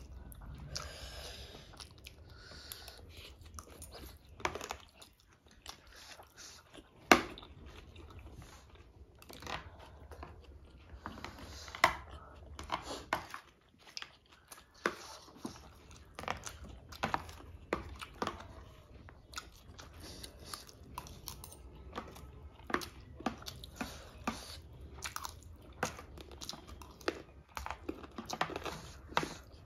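Close-miked eating sounds: chewing and biting, with many short, sharp clinks of metal forks and spoons against ceramic plates. The loudest clink comes about seven seconds in.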